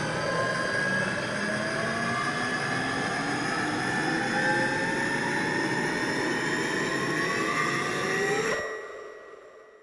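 Designed sci-fi sound effect: a dense rushing drone with several tones slowly rising through it. It cuts off suddenly near the end, leaving a short fading ring.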